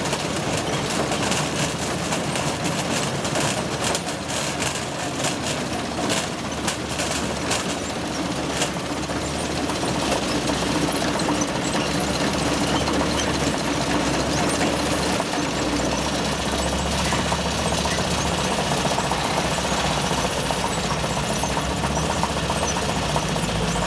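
Sugar beet rescreener running, its conveyors and vibrating shaker making a steady mechanical racket, with beets clattering as they drop off the top conveyor into a truck trailer over the first ten seconds or so. A deeper engine rumble joins about fifteen seconds in.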